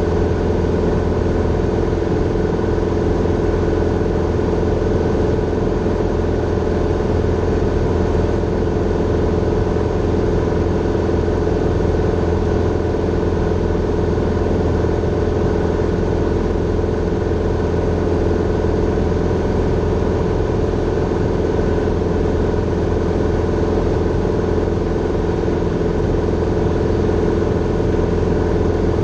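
Grumman Tiger light aircraft's four-cylinder Lycoming engine and propeller running steadily in flight, a constant drone heard from inside the cockpit.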